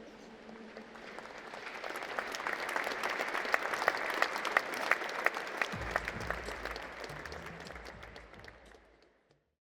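Audience applause: many hands clapping, swelling over the first few seconds and then fading out to silence near the end, with a low rumble joining about six seconds in.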